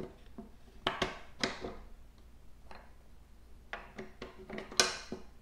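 Plastic propeller pitch blocks being pressed down over the hub bolts: a scatter of light clicks and knocks, the louder ones about a second in, at a second and a half, and near the end.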